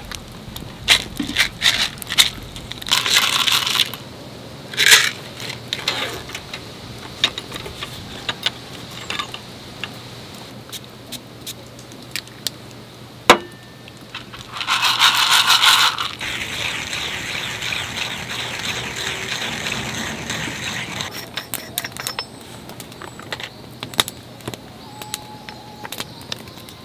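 Camp coffee gear being handled: clinks and clicks of metal cups, a portable espresso press and coffee containers being set down and opened, with one sharp knock about halfway through. Two short hissing rushes come about three seconds in and again around the middle, followed by a softer rustle.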